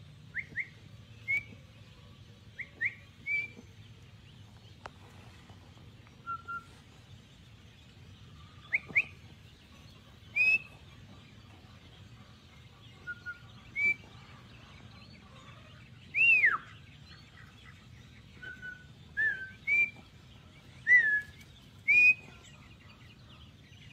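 Herding whistle commands to a border collie: short whistled notes at irregular intervals, some in quick rising pairs and some level. One longer note falls steeply about two-thirds of the way through.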